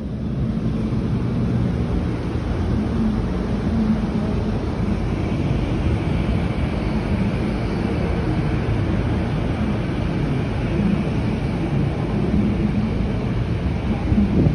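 Steady wind rush and low rumble outdoors on a high balcony, much of it wind on the microphone, swelling in at the start as a sliding balcony door opens.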